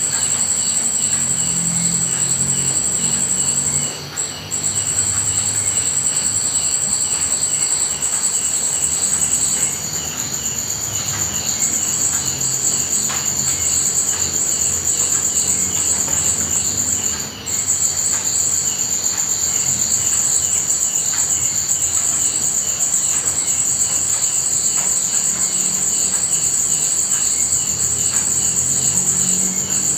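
Insects trilling steadily in a high, finely pulsing chorus, with further pulsing layers lower down. The main trill breaks off briefly twice.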